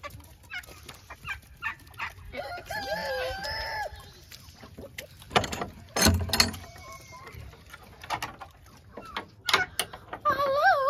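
A rooster crows once for about a second and a half, a couple of seconds in, with chickens about. Around the middle come a few loud knocks and bumps from the wooden pen door being handled, and a short bending animal call sounds near the end.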